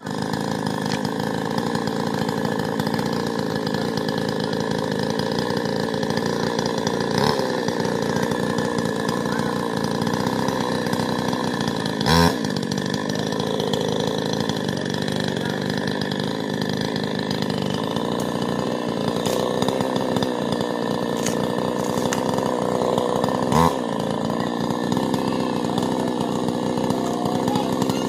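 Chainsaw running steadily while cutting a tree, with two short louder bursts about twelve and twenty-four seconds in.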